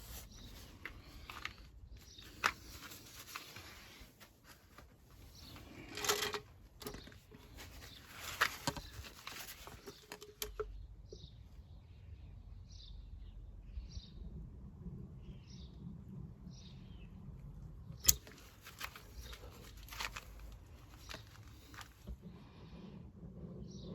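Scattered clicks, taps and rustling from hands working on the van, with a loud sharp knock about six seconds in and another near eighteen seconds. In the middle stretch a bird chirps repeatedly, short high calls spaced under a second apart.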